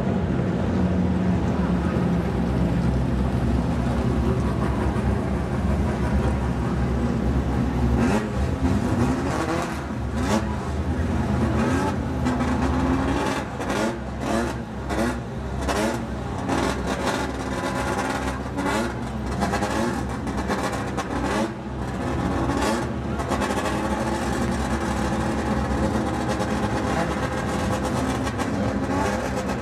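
Vehicle engine running steadily at idle, with people's voices and a few knocks mixed in from about eight seconds in.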